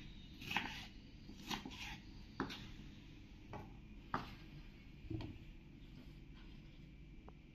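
Kitchen knife chopping raw banana peel on a wooden cutting board: short, sharp knocks of the blade on the board, roughly once a second, thinning out after about five seconds.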